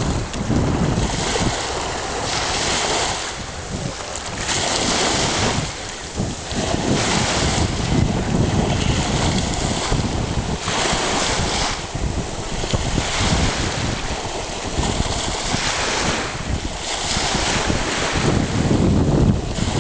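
Small surf breaking and washing up a sandy beach, swelling and ebbing every second or two. Wind buffets the microphone with a low rumble that grows stronger near the end.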